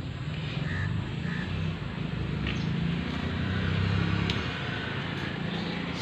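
Low, steady mechanical rumble that swells a little toward the middle and eases off again.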